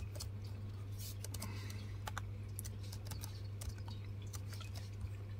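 Laptop keyboard being typed on: sparse, irregular key clicks over a faint steady low hum.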